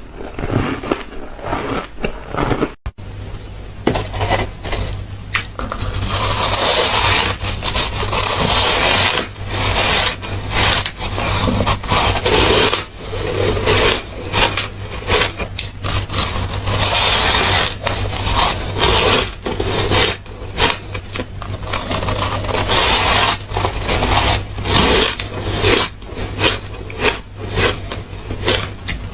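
Close-miked crunching of ice being bitten and chewed: a dense, irregular run of crackling crunches.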